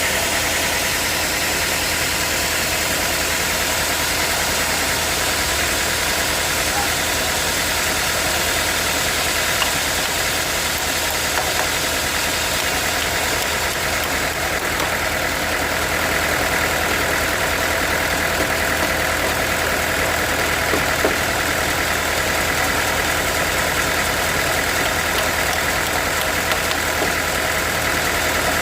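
Sawmill machinery running steadily: a continuous loud mechanical drone with a few steady tones in it, unchanging throughout.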